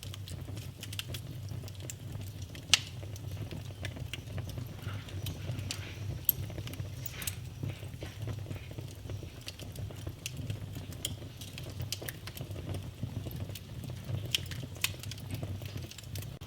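Wood fire burning in a fireplace: a steady low rumble of flame with irregular crackles and pops, a sharper pop about three seconds in and another about six seconds in.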